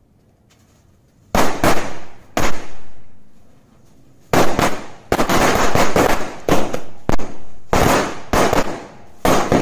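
A Sunshine brand 'Turkey' string of small firecrackers (a ladi) going off as a rapid, irregular chain of sharp bangs. It starts about a second in, pauses briefly around the third second, then comes thick and fast.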